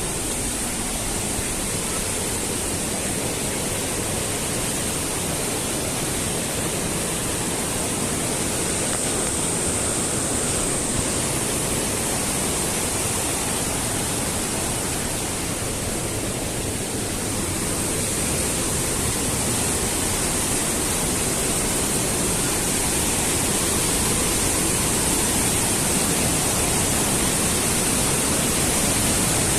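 Steady rushing of water from a mountain gorge stream and its waterfalls, growing a little louder near the end.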